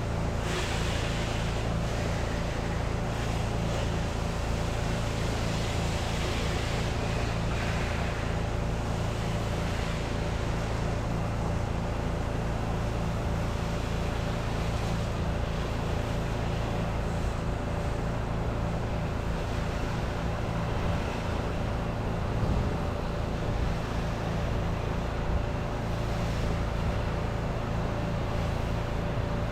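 Pressure washer's engine and pump running steadily while spraying, with the hiss of the water jet, stronger in the first few seconds.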